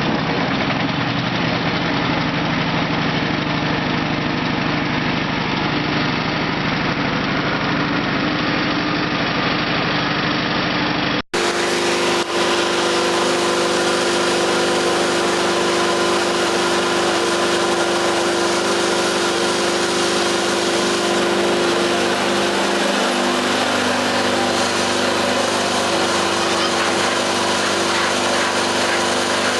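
Small 7-horsepower Honda gas engine running steadily, driving the spinning knife shaft of a hay bedding chopper. The sound cuts out for an instant about eleven seconds in, then the steady engine hum carries on.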